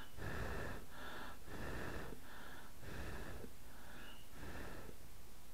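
A person blowing in short, repeated puffs, about two a second, onto molten candle paraffin to cool it so it sets.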